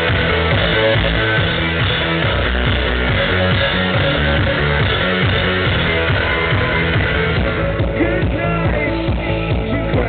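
Live electronic rock band playing loudly: synthesizer and electric guitar over a steady beat.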